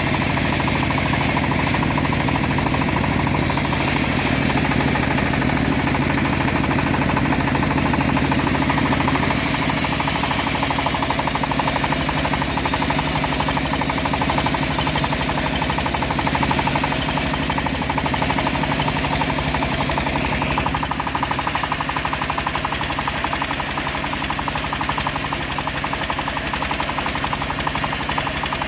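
Engine-driven homemade bandsaw running steadily with a fast, even knocking beat while sawing trembesi wood. The sound shifts slightly about two-thirds of the way through.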